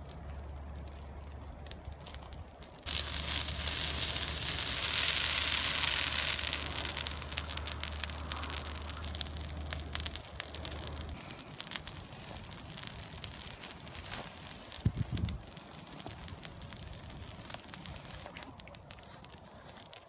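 Forest fire burning through dry shrubs and undergrowth, crackling and popping with many small snaps. About three seconds in, a loud rushing hiss swells for several seconds and then fades, and a brief thump comes about halfway through.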